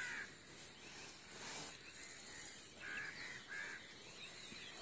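Faint rural outdoor ambience with a few short bird calls, two of them close together about three seconds in, over a steady high hiss.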